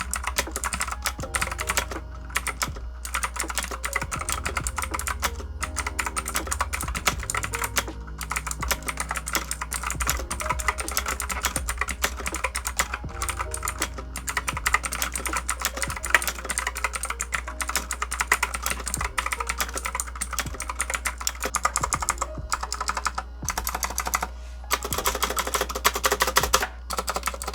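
Continuous fast typing on a Havit HV-KB393L mechanical keyboard with clicky blue switches. The keystrokes are dense and uneven, with spring ping from the hardware and rattling keycaps mixed into the clicks.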